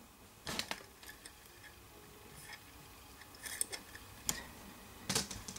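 A few faint, scattered clicks and light taps, spread unevenly over several seconds.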